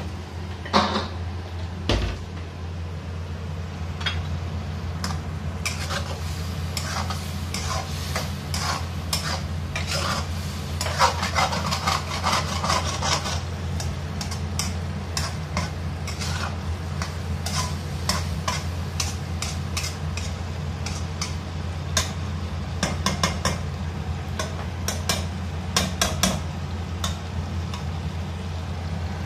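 Metal spatula scraping and clattering against a wok while stir-frying peas and meat, with the food sizzling. The clatter is busiest about halfway through, over a steady low hum.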